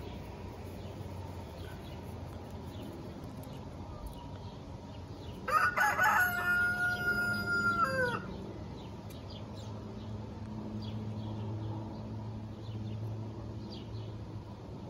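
A rooster crowing once, about five seconds in: a single cock-a-doodle-doo lasting between two and three seconds, its pitch dropping at the end.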